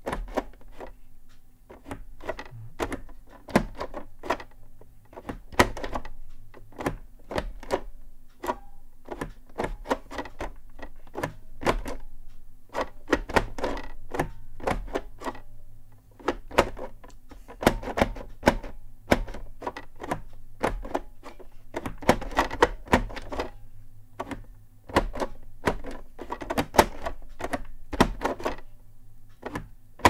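Orbitouch keyless keyboard being typed on, its two domes slid from position to position by both hands: irregular clacks and knocks, several a second, in runs broken by short pauses.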